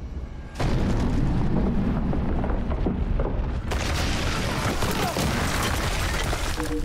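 Film sound effect of an RPG-7 rocket exploding against a police robot: a sudden blast about half a second in, then a long rumbling roar, with crashing, crackling debris from about four seconds in.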